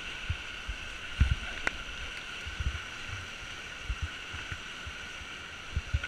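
Steady rush of river water heard from a raft, with scattered low thumps and one sharp click about a second and a half in.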